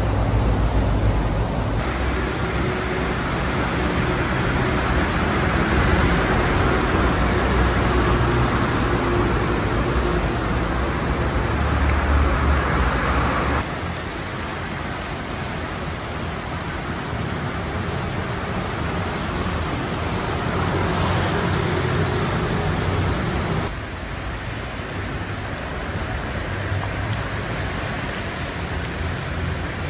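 Steady rumble of road traffic mixed with the rushing of floodwater in a concrete creek channel. The sound shifts abruptly about 2, 14 and 24 seconds in, getting quieter from about 14 seconds on.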